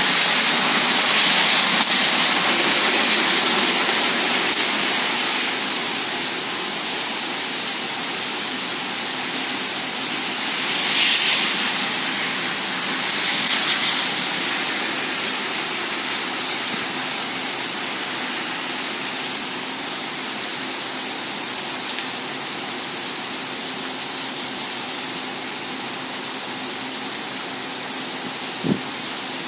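Rain falling steadily in a thunderstorm, a continuous hiss that swells a few times, with a few light ticks of drops. There is a single short thump near the end.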